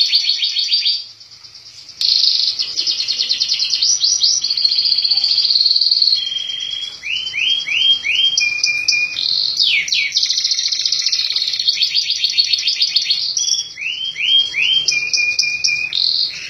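Domestic canary singing a long, fast song of rapid trills, with runs of quick falling whistled notes between them and a brief pause about a second in.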